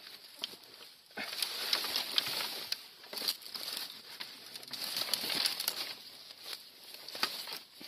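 Dry branches and grass rustling and crackling as they are pushed aside, in three spells with many sharp clicks of twigs.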